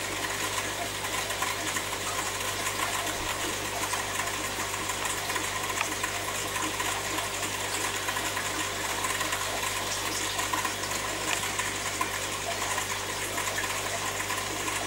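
Steady low hum of a running aquarium's air pump and filter, with water bubbling and trickling in the tank.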